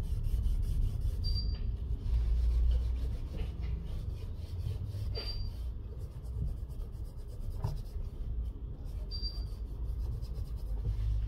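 Paper tissue rubbing over the glass back of a Google Pixel 4 XL phone as it is wiped clean.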